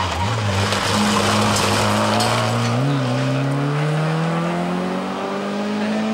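Citroën C2 rally car's engine slowing into a hairpin, with tyre noise through the corner. It then accelerates away in one gear, its pitch rising steadily over the last three seconds.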